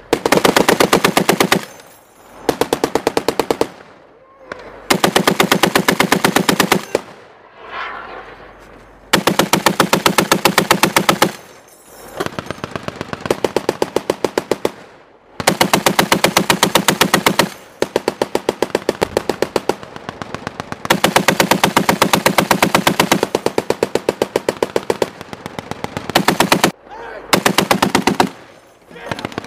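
M2 Browning .50 caliber heavy machine gun firing from a Humvee mount in long bursts of rapid, evenly spaced shots, about ten bursts with short pauses between them; some bursts are quieter than others.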